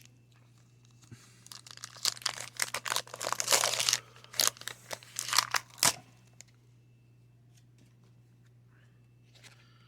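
Paper wrapper of a baseball card pack being torn open and crinkled, a quick run of rips and crackles lasting about four seconds, with the loudest tears near the end.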